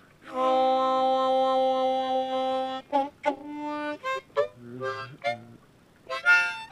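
Harmonica in C played by mouth: a long held chord for about two and a half seconds, then a run of short notes and brief phrases, a short pause, and a last quick burst of notes near the end.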